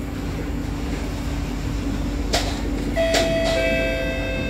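SMRT C151C metro train pulling away: a steady low rumble, two sharp clunks a little over two and three seconds in, then a steady electric whine from the traction drive from about three seconds in.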